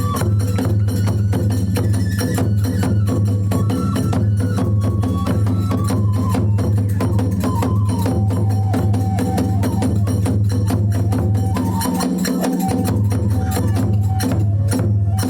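Kagura hayashi music: rapid, continuous drum and hand-cymbal beating under a high bamboo-flute melody that steps up and down.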